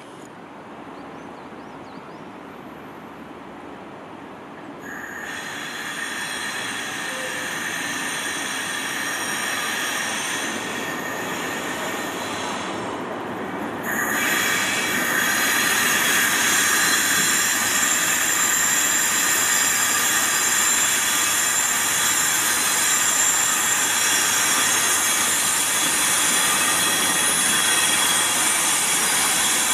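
Class 56 diesel locomotive, with its Ruston-Paxman V16 engine, approaching with a train of tank wagons, its wheels squealing on curved track. The squeal sets in about five seconds in and jumps louder about halfway, as the engine and wheel noise swell with the train's approach.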